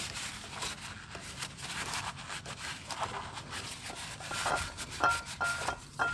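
A rag scrubbing and wiping out the inside of a GY6 scooter's metal transmission case, a run of short rubbing scuffs. Near the end a few light clinks come in with a faint ringing tone.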